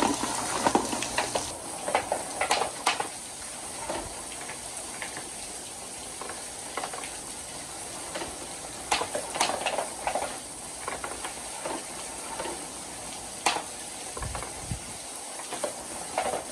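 Water running steadily down a course of rain gutters, with scattered clicks and knocks of wooden balls rolling and bumping along the gutters. It is busier and louder in the first second or so.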